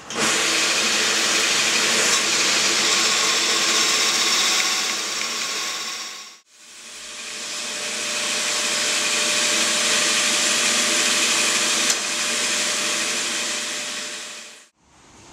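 Band saw cutting a curved shape through a ceramic tile: a steady motor and blade noise. It breaks off briefly about six seconds in, starts again, and fades out near the end.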